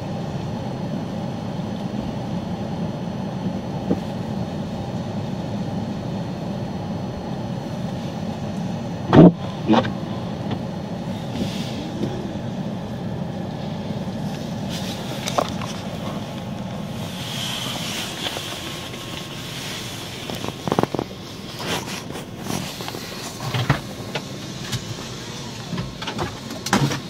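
A vehicle's engine running steadily, with occasional sharp knocks and thumps, the loudest about nine seconds in and more of them near the end.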